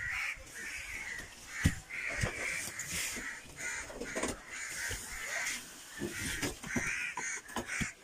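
Crows cawing over and over, with a few sharp knocks, the loudest about one and a half seconds in.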